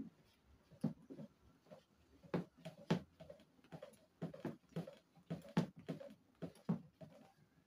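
A spatula stirring thick liquid detergent in a plastic basin makes irregular wet slaps and scrapes, about two a second.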